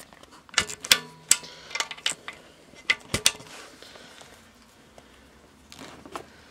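Sharp clicks and knocks of small hardware and packaging being handled, a quick run of them in the first three seconds or so, then quieter handling.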